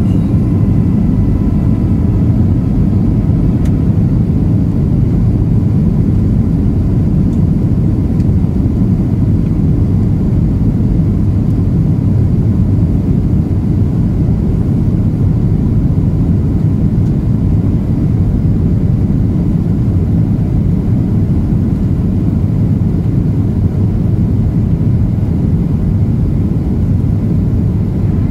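Airliner cabin noise during the landing descent: a steady, even low roar of engines and airflow heard from a window seat.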